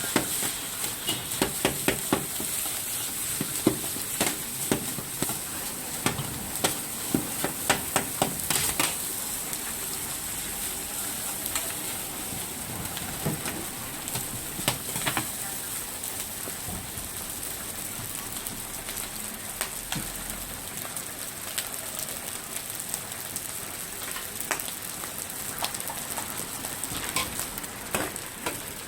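Rice frying on a hot iron griddle with a steady sizzle, while a metal spatula scrapes and clanks against the iron plate: rapid knocks for the first nine seconds or so, then fewer and spaced out.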